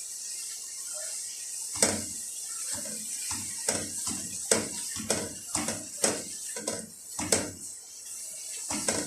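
A spoon stirring grated onion and spices in oil in a cooking pot, scraping and knocking against the pot in repeated strokes, over a faint steady sizzle.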